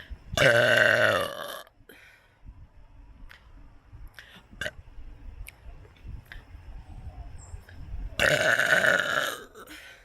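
A person burping twice, each burp long and loud, one just after the start and another about eight seconds in. Faint clicks come in between.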